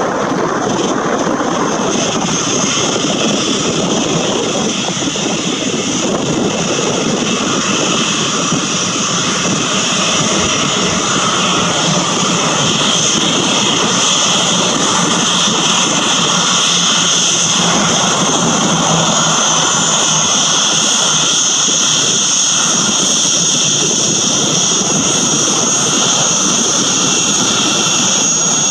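Boeing 737-800's CFM56-7B turbofan engines running at taxi power: a steady jet rush with a high whine on top, growing slightly louder about a third of the way in.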